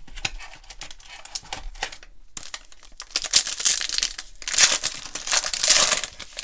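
Foil wrapper of a 2019-20 Panini Donruss basketball jumbo pack crinkling and tearing as it is ripped open by hand. It is quieter at first, then comes in two loud spells of crinkling in the second half.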